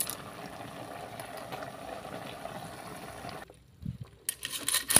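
Clam broth simmering in a pot with lala clams in it: a steady bubbling that cuts off suddenly about three and a half seconds in, followed by a few light clicks.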